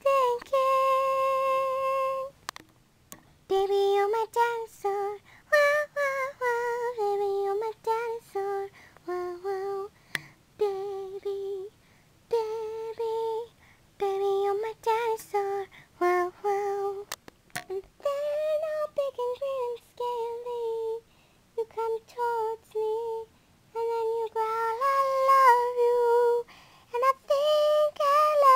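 A female voice singing a song unaccompanied, in short melodic phrases with brief pauses between them, holding one long steady note near the start.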